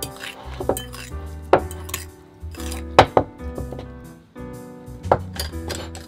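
Metal fork clinking against a glass bowl while stirring floured shrimp through beaten egg: several sharp clinks, the loudest about three seconds in, over background music.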